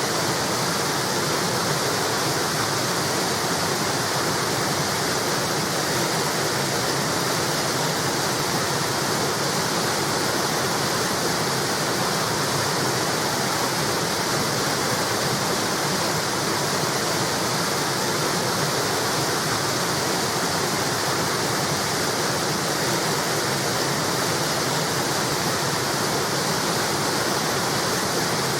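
River water spilling steadily over a small wall, a continuous even rushing with no breaks or changes.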